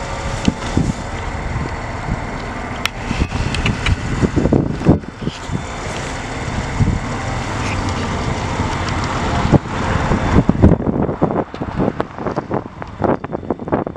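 Wind buffeting the camera microphone in uneven gusts, with a steady outdoor rumble beneath. In the last few seconds it breaks into a quick run of knocks and thumps from the camera being handled.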